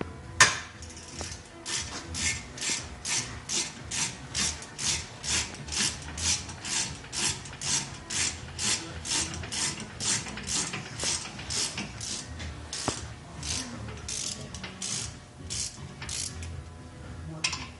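Ratchet wrench clicking in quick, even back-and-forth strokes, about two a second, turning a front brake caliper bolt. One sharp, louder click comes about half a second in.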